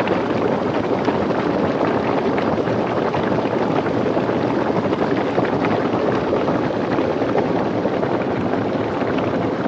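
Small geyser in a thermal spring heard close up: water bubbling rapidly and steadily.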